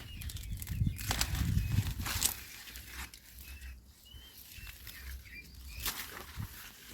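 Faint short bird chirps with scattered knocks and rustling in a farmyard.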